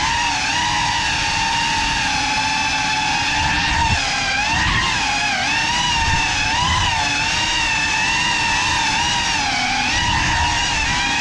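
GEPRC Cinelog 35 FPV cinewhoop drone in flight, its brushless motors and ducted propellers giving a steady whine that rises and falls in pitch as the throttle changes.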